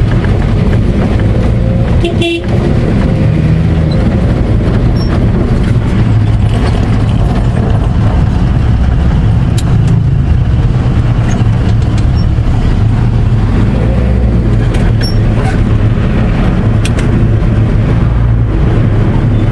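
Truck engine running as the truck drives, heard from inside the cab as a steady low rumble, with a brief horn toot about two seconds in.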